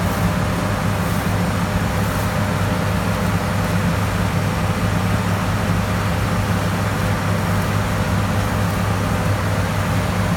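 Steady low drone of a combine harvester running, its engine and machinery humming evenly without change.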